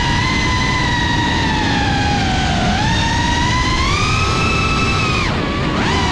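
Brushless motors and propellers of a GEPRC CineLog35 FPV cinewhoop drone whining. The pitch rises and falls with the throttle, and about five seconds in it drops sharply and climbs back within half a second as the throttle is chopped and punched. A low rushing noise of wind and prop wash runs underneath.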